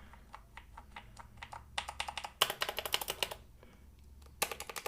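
Typing on a mechanical keyboard with freshly lubricated switches, a sound test after lubing: a few soft, even keystrokes, then a quick flurry of louder ones about two seconds in, a short pause, and another fast run near the end.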